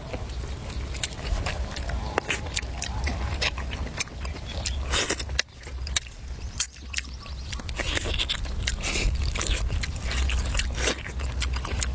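Irregular sharp clicks and scrapes of utensils and eating, over a steady low hum.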